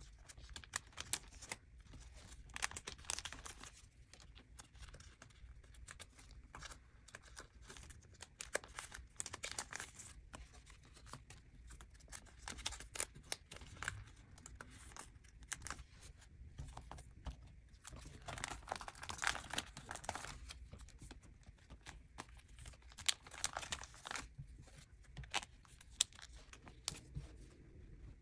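Soft rustling and crinkling of plastic card sleeves and binder pocket pages as photocards are handled and slid into the pockets, with frequent small clicks and taps.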